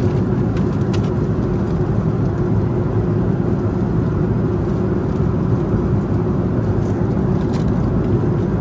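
Steady cabin noise of a Boeing 737-900 in cruise: a continuous low rumble of engines and airflow, with a few faint ticks.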